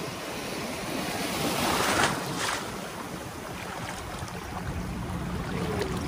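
Sea water washing around, with the water noise swelling and splashing about two seconds in.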